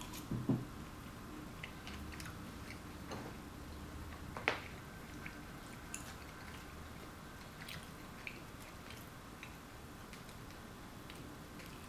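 A person chewing a mouthful of syrupy blueberry waffles, with scattered small clicks and taps from a fork on a paper plate; the sharpest click comes a little before the middle.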